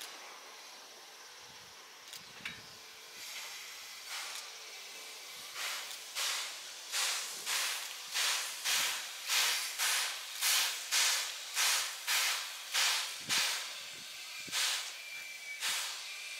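JNR Class C11 steam tank locomotive chuffing as it pulls slowly forward. Its exhaust beats begin about five seconds in, at roughly two a second, over a steady steam hiss.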